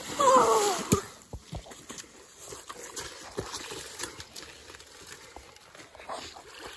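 A bicycle splashes into a muddy puddle, with a short shout over it at the start. Then come scattered knocks and footsteps on wet gravel.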